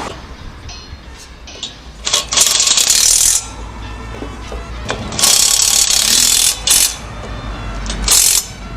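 Loud mechanical rattling in bursts of a second or so, four times, over a low steady hum: a power tool or machine worked in short spells.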